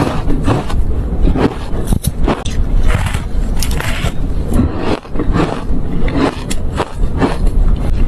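Ice being bitten and chewed right at the microphone: an irregular run of crisp crunches, about two a second.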